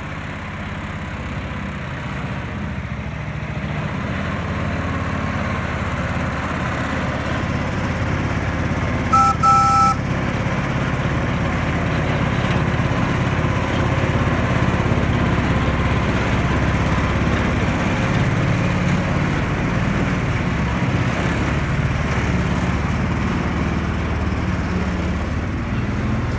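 Small engine of a homemade ride-on Thomas train running steadily while it pulls its cars, growing louder over the first dozen seconds. A short two-tone horn beep sounds about nine seconds in.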